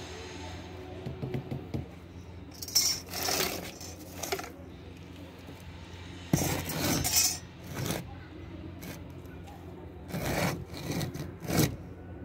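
A rough stone scraped and shifted over gritty wet concrete and set under a CPVC water pipe: several short, rasping scrapes about a second apart, over a faint steady low hum.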